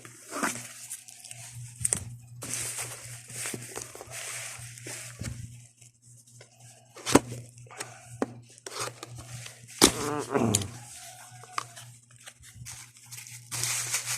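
Handling noise from unboxing a steel water bottle and its packaging: scattered clicks, taps and short rustles over a steady low hum, with a short falling whine about ten seconds in.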